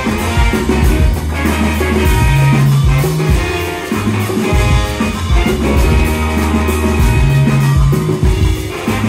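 Live brass band playing: trombone and saxophones over a Nord Stage 3 keyboard and drum kit, with long held low bass notes and a steady drum beat.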